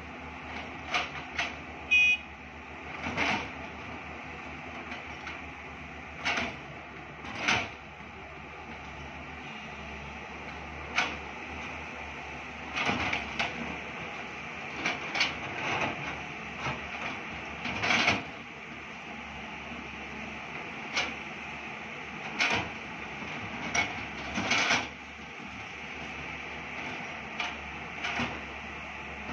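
JCB and Tata 200-class hydraulic excavators digging, their diesel engines running steadily under load, with repeated metallic clanks and knocks from buckets and boom linkages scattered irregularly through the dig.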